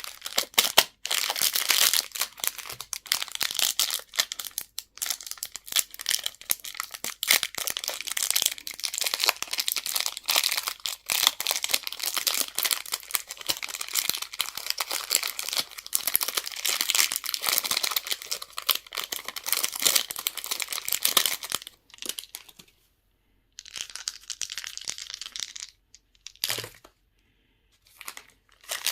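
Candy and toy packaging being crinkled and torn open by hand: a dense run of crackling for most of the stretch, breaking off about two-thirds of the way in, followed by a few short bursts of crinkling.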